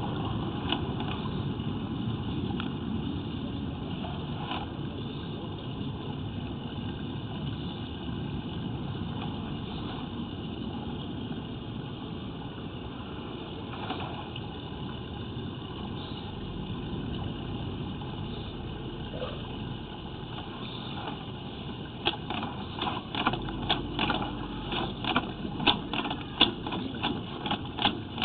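Steady low rumble, with a rapid run of sharp clicks and rattles from about two-thirds of the way in, as the sewer inspection camera's push cable is worked forward along the pipe.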